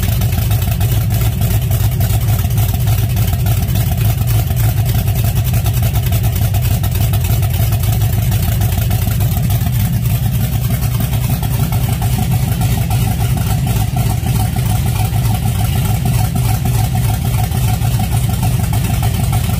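LS V8 swapped into a box Chevy Caprice idling steadily at about 800 rpm on its first start-up, with its exhaust still waiting for mufflers.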